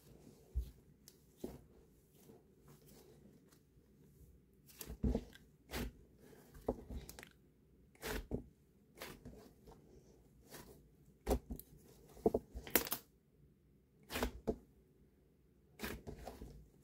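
Cloud slime being stretched and pulled apart by hand, giving soft tearing, crackling sounds in irregular bursts about once a second.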